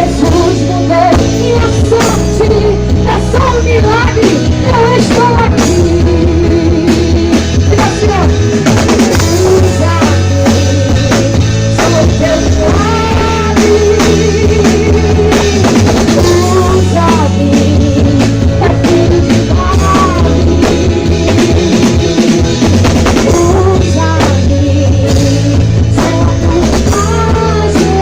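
Live worship band playing a rock-style song, loud: a steady drum kit and bass under a wavering melody line.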